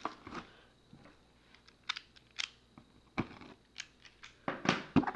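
Packaging being handled while a delivery box is opened: scattered sharp clicks and taps with soft rustling between them, and a cluster of louder knocks near the end.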